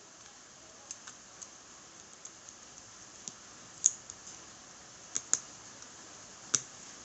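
Scattered light clicks and taps of small hard parts being handled, with a few sharper, louder clicks: one about four seconds in, a quick pair just after five seconds, and one more near the end.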